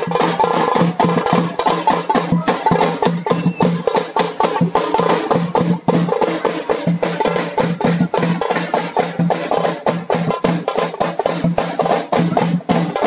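Loud dance music with fast, busy drumming over a steady low note.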